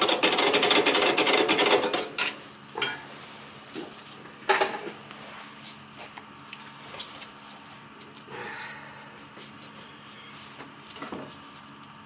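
Metal clattering and scraping as a gloved hand works on the top of an oil furnace's burner, loudest for the first couple of seconds. It is followed by a few sharp clicks and knocks.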